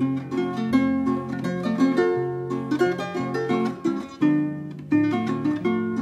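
Music played on a plucked string instrument: a quick run of notes over held bass notes.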